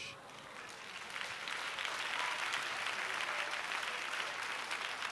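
Audience applauding: a dense patter of many hands that builds about half a second in and holds steady, easing slightly near the end.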